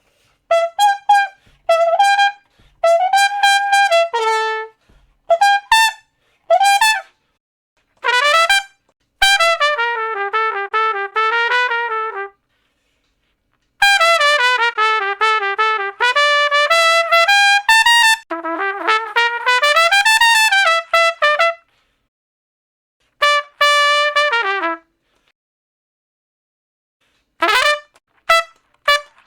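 Trumpet playing a series of separate licks: short single notes and longer running phrases, each cut off by a silent gap. Some notes scoop up into pitch, and two phrases run down and back up in a wavering line.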